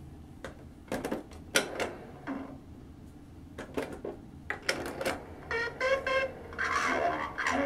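Clicking and clatter of the knobs and controls on a vintage Hasbro G.I. Joe Trouble Shooter satcom unit being turned and pressed. About five and a half seconds in, its built-in talking voice starts a recorded phrase, played back slow.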